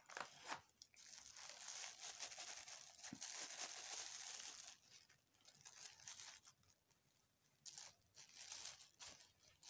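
Faint crinkling and rustling of a thin polythene bag handled by hands. It runs for a few seconds, stops, then comes back in a few short bursts near the end.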